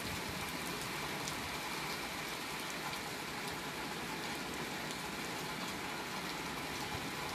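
Hard rain falling steadily, a constant hiss with scattered faint drop ticks.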